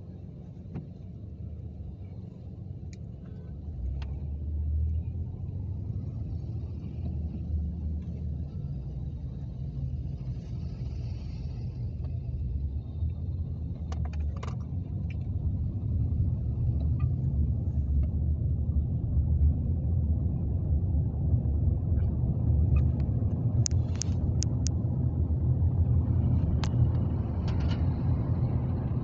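Low engine and road rumble of a vehicle in traffic, heard from inside the cabin, growing louder after a few seconds as it gets moving. A few short sharp clicks come around the middle and near the end.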